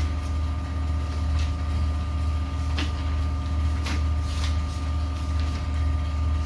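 Steady low hum, with a few faint short ticks or rustles around the middle.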